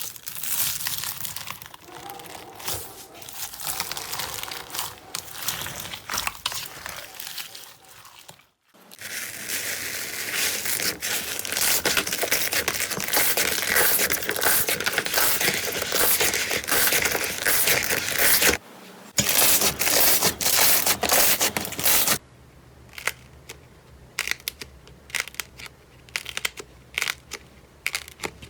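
Slime being squeezed, pressed and pulled, making dense crackling and crinkling, with two abrupt breaks where the sound changes. For the last several seconds it thins out to scattered separate pops and clicks.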